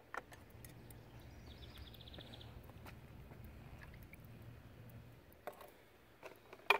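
Faint clinks of metal tongs against a glass jar as a threaded-rod sample is lowered into hot acid: one light click just after the start, then sharper clicks near the end, the last the loudest. Under them a low steady hum runs for about five seconds, and a short rapid high trill comes about two seconds in.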